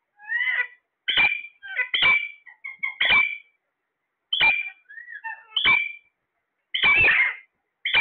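Caged parakeets, Alexandrines and ring-necks, squawking. It is a string of loud, harsh calls about a second apart, with the longest call near the end.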